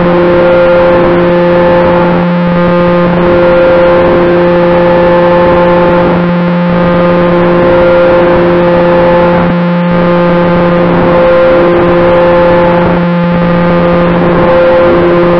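Propeller and motor of a radio-controlled model plane in flight, heard from an onboard camera next to the nacelle: a loud, steady, distorted drone at constant pitch with gentle swells in loudness.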